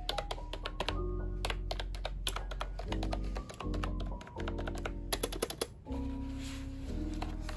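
Ajazz x Nacodex K08i Bluetooth keyboard with round typewriter-style keycaps being typed on: quick runs of clicky key presses in several bursts, stopping about six seconds in, over soft background music.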